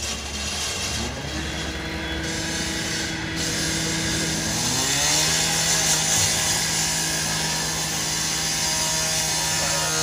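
Handheld power saw with a circular blade cutting into the steel body panel of a garbage truck. The blade spins up twice and grinds through the metal, with a dense hiss that is loudest a little past halfway.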